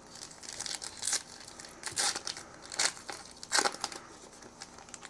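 Trading cards and a foil pack wrapper being handled, with a series of short crinkling, rustling bursts.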